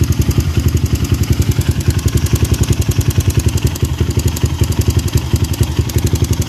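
Kawasaki KLX150's air-cooled single-cylinder engine idling cold, with a rapid, even ticking over the engine's beat. The tick sounds like a cam chain tensioner, but the mechanic puts it down to the aftermarket PWK carburettor: its slide and needle chatter up and down at idle on what he takes for a weak slide spring, or a slightly worn slide.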